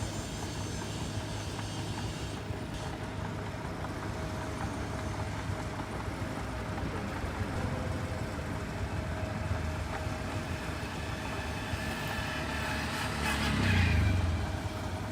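Steady low rumble with hiss of outdoor background noise, swelling briefly and falling away near the end.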